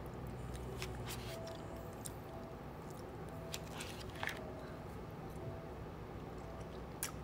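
Metal spoon scraping and clicking against a paper cup of ice cream: a few short sharp clicks spread out over a quiet background, with soft eating sounds.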